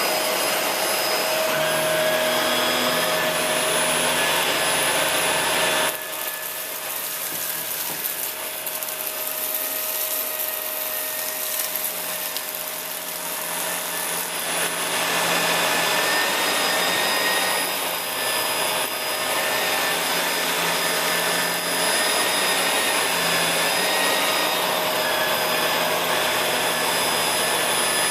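Shark Rotator Lift-Away upright vacuum cleaner running steadily with a high whine while vacuuming carpet. Its sound drops a little about six seconds in and comes back up around fifteen seconds in.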